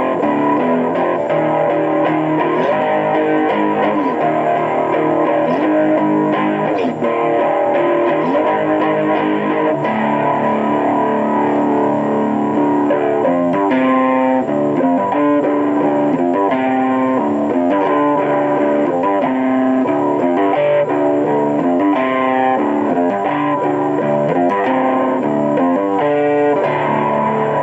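Electric guitar playing: held notes with pitch bends at first, then, from about halfway, a fast, evenly picked run of repeated notes.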